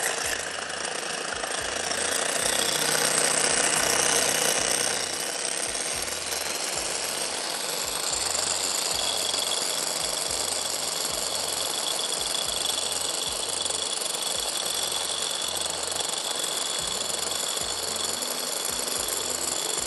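Electric hand mixer running steadily, its twin beaters whipping two egg whites to a froth in a glass bowl. It is somewhat louder between about two and five seconds in.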